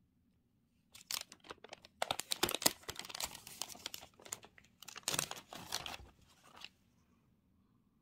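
Packaging being handled and crinkled, in dense crackling bursts from about a second in until shortly before the end.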